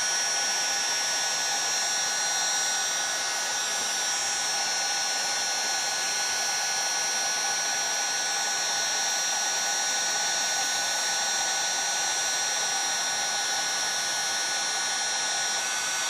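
Electric heat gun running steadily: a constant rush of blown air with a fixed high whine, heating the aluminium crankcase so it expands enough to take the crankshaft bearing.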